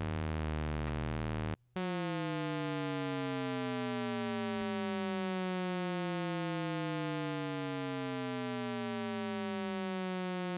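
Shepard tone from the Arturia Pigments harmonic engine: a held synth note made of stacked sine partials that all glide slowly downward, each fading as the next takes its place, so the pitch seems to fall endlessly without getting anywhere. The tone cuts out briefly about a second and a half in, then carries on.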